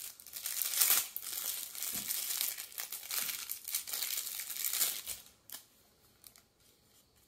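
Thin clear plastic wrap crinkling as a projector remote control is worked out of its bag, stopping about five seconds in; one click follows.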